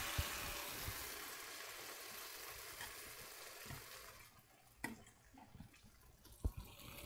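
Wet poached peach half sizzling in a hot cast-iron skillet, the hiss fading away over about four seconds, with a few light clinks of metal tongs against the pans.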